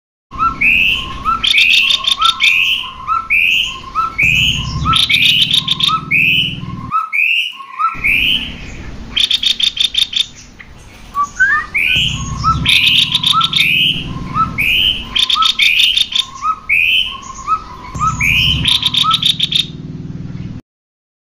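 Cucak kopi songbird singing: a string of short rising whistled notes, about two a second, broken every few seconds by fast rattling trills. The song drops out abruptly for about a second midway.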